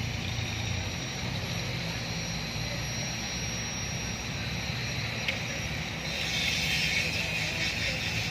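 Diesel engines of heavy earthmoving machinery running steadily, with a high whine over the low rumble. There is one sharp knock about five seconds in, and a louder hissing noise comes in about six seconds in.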